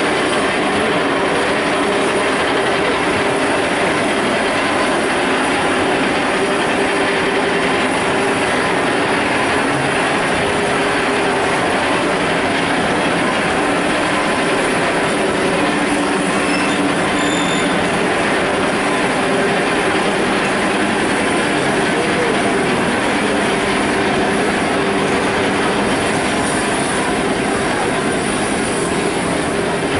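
Railway carriage running along the track: a steady rumble and rattle of wheels on rail, heard from aboard the moving train.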